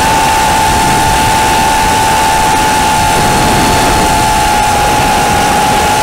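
FPV quadcopter's brushless motors and propellers holding a steady high whine, with a dense rush of prop wash and wind noise; the pitch sags only slightly, as at a near-constant cruising throttle.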